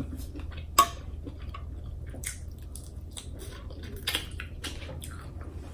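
Close-miked wet chewing and lip smacks of a person eating shrimp, with scattered small clicks. A sharp click comes about a second in and another louder smack about four seconds in, over a low steady hum.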